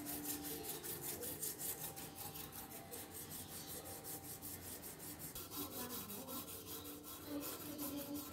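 Hand file scraping back and forth inside the open jaw of a chrome-vanadium combination wrench clamped in a vise, in quick, even strokes.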